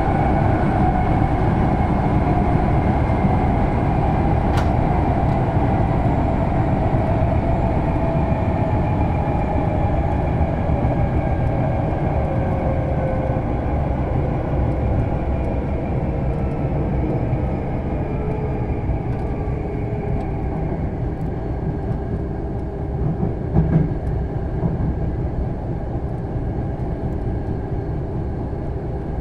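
Running noise inside a Hankyu 6300-series train car: a steady rumble of wheels and track, with a drive whine that slowly falls in pitch as the sound eases off a little. There is a light click about four seconds in and a brief low knock near the end.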